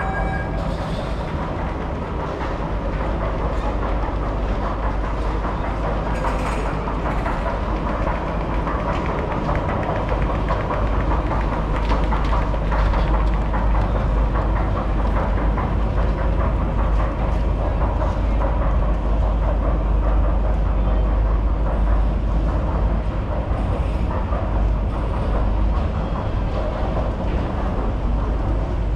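Driverless metro train running on its rails: a steady low rumble with a faint whine, growing slightly louder a few seconds in.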